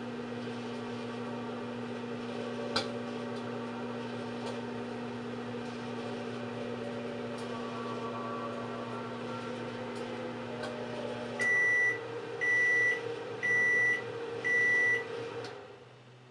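Microwave oven running with a steady hum. About eleven seconds in, the heating cuts out and the oven gives four short, high beeps about a second apart to signal the end of the cooking time, then its fan runs down.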